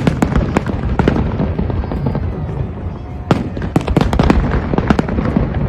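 Fireworks going off: many sharp bangs and cracks of bursting shells in quick succession, thickest about three and a half to four and a half seconds in, over a steady low rumble.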